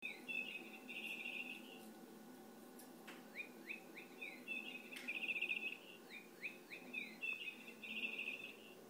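Toy bird chirping: the same rapid trilled phrase three times, with short downward-swooping tweets between them.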